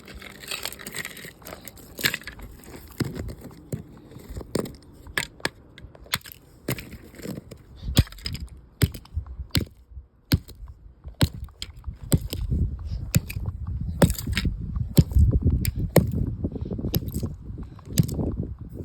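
Plastic alarm clock being smashed and broken apart: irregular sharp cracks and knocks, with denser crunching in the later part.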